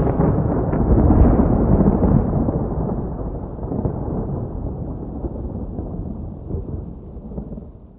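Thunder rumbling, with a few sharp cracks in the first second, then a long low roll that slowly fades away to nothing near the end.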